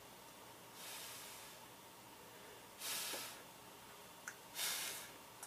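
A person breathing audibly through the nose close to the microphone: three soft rushes of breath, each about half a second long, every second and a half to two seconds, with a small click in between.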